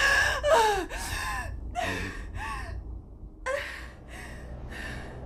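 A woman sobbing in short gasping cries and breaths, about two a second, with a brief pause about three seconds in.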